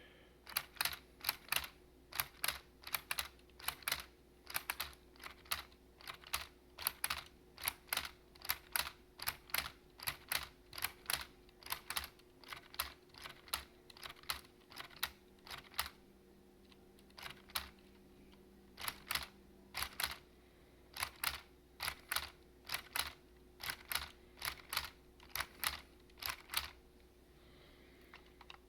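Keys of a Lego-brick typewriter being typed: a long run of sharp plastic clacks at about two a second, with a few short pauses.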